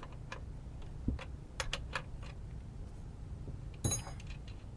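Scattered small clicks and knocks of a battery cable and terminal being handled as a lead is undone from a 12 V car battery, with one louder ringing metallic clink about four seconds in.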